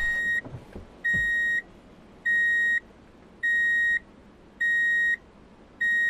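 Electronic warning beeps: a single steady high tone about half a second long, repeating evenly about every 1.2 seconds, six times.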